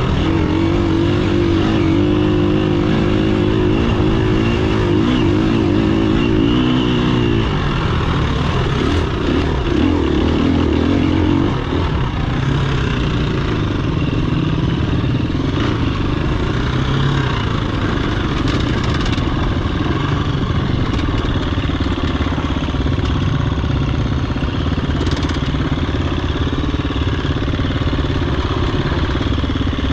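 Off-road dirt bike engine running under load on a trail, its pitch rising and falling with the throttle. The engine note is clear for about the first seven seconds, then becomes rougher and noisier.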